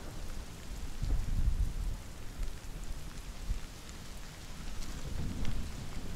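Wind buffeting the microphone in gusts: a low rumble that swells about a second in and again near the end, over a steady hiss.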